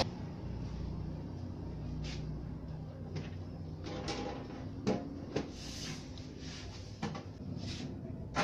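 Scattered light knocks, clicks and rustles of hands handling a Sony mini component stereo's casing and a hand tool, about half a dozen short knocks spread through, over a steady low hum.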